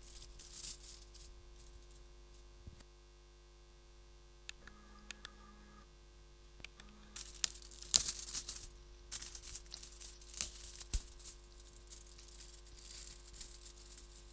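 Irregular rustling and crackling handling noise from a handheld microphone held up against a homemade 3D printer, heavier in the second half. Two short faint whines from the printer's stepper motors come partway through.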